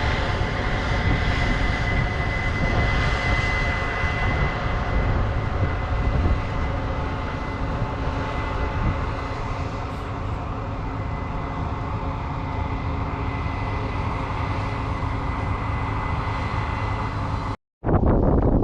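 Heavy farm machinery running steadily: a deep engine drone with a constant high whine. Near the end it cuts off abruptly, and a rougher, wind-like noise follows.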